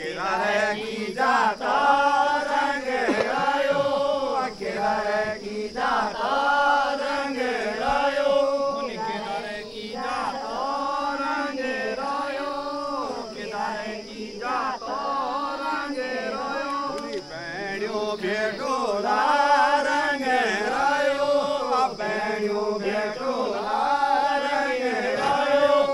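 Voices singing a chant-like devotional folk song, the same short melodic phrase repeating about once a second.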